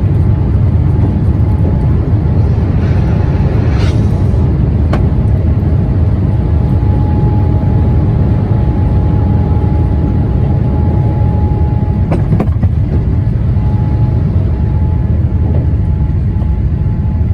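Boeing 787's GE engines running: a loud, steady low rumble with a thin steady whine that fades in and out. A brief hiss rises about three to four seconds in, and there are a few faint clicks.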